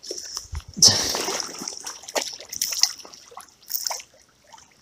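A hooked smallmouth bass splashing and thrashing at the surface of a shallow creek as it is played in and lifted out of the water, with the loudest splash about a second in, then smaller splashes and drips.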